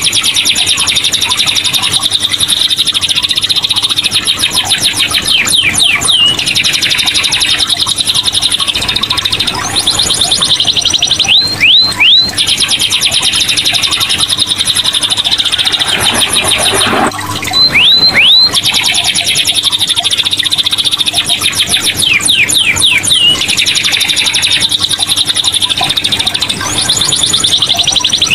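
Caged domestic canary in full song: long, very rapid trills, broken every few seconds by quick clusters of sweeping whistled notes, with no pauses.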